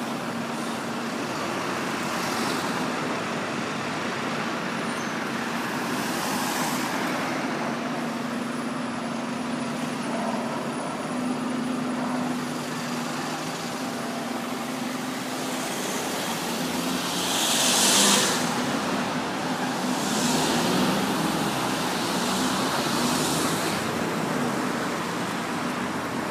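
Busy road traffic with buses: a steady low engine hum under the noise of passing vehicles, with several hissing swells, the loudest about two-thirds of the way through.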